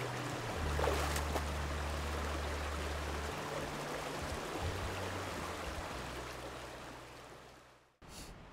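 Small rocky stream running over stones and riffles, a steady rush of water that fades out near the end.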